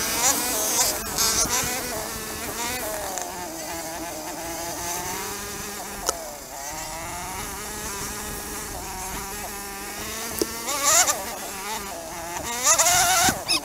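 Dirt bike engine heard close up while riding, its pitch rising and falling as the throttle opens and closes. Short bursts of rushing noise come in near the end.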